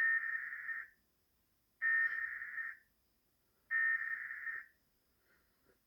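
Emergency Alert System weekly test: three bursts of SAME digital data tones, each just under a second long, with about a second of silence between them.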